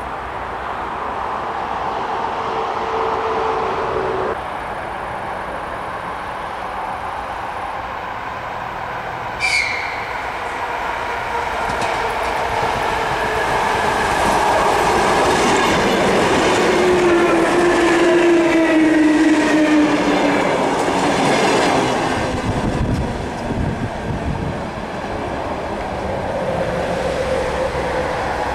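ER2T electric multiple unit approaching and slowing into a stop: rolling noise with wheels clattering over rail joints builds up, joined by a whine that falls in pitch as the train slows. A brief, sharp high squeal rings out about ten seconds in.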